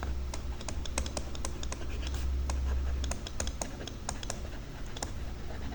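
Typing on a computer keyboard: a run of irregular key clicks, about four a second.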